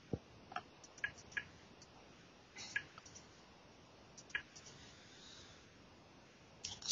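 Faint computer mouse clicks, about a dozen, irregularly spaced, over a low steady hiss.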